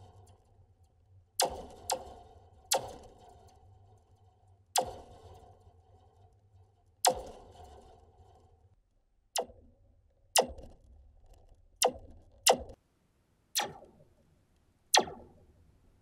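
A long thin metal spring (Slinky-type coil) struck with a metal wrench about eleven times at uneven intervals, a plastic cup on its end as a small horn. Each strike gives a sharp blaster-like "pew" that drops in pitch, then a short ringing. The highs travel faster through the coil than the lows and reach the microphone first.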